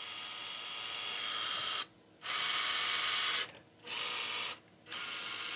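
Electric motor and geared drivetrain of a 1/12 scale Rochobby Willys MB RC crawler whining as the throttle is applied in training mode, in low gear. Four runs of a steady whine with short stops between, the first swelling slightly.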